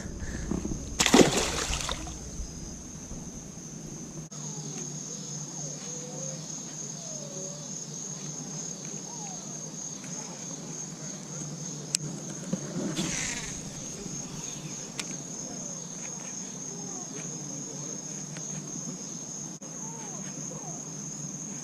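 Steady high-pitched trilling of insects with a faint pulse, such as crickets. A brief rush of noise about a second in is the loudest thing, and another shorter one comes about halfway through.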